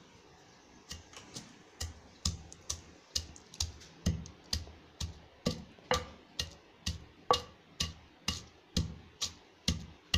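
A pestle pounding coarse salt, garlic cloves, tamarind and cumin in a stone mortar. The strikes begin about a second in and go on at a steady rhythm of about two a second, each a dull thud with a sharp click on top.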